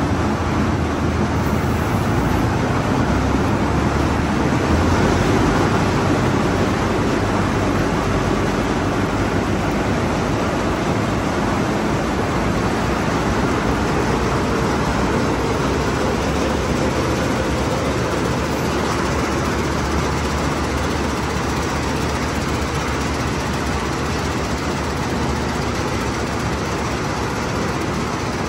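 Simran 676 combine harvester running, its engine and machinery making a loud, steady, even mechanical noise.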